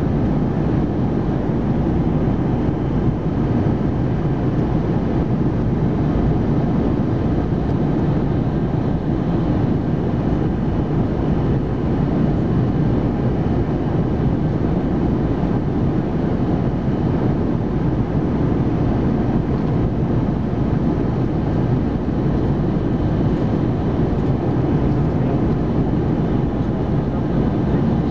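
Steady cabin noise of an Airbus A319 on approach, heard from inside the cabin: an even, low jet engine and airflow noise with no changes in pitch or level.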